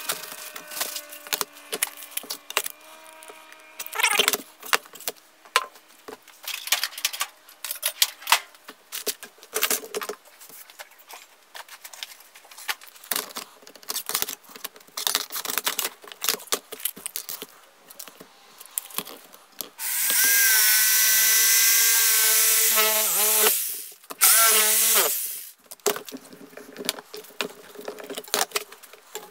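Hand work on a plastic sheet at a metal workbench: rubbing, scraping and the clatter of tools being picked up and set down. About two-thirds of the way in, a handheld power tool runs loudly for about three and a half seconds, its pitch wavering, then runs again briefly a moment later.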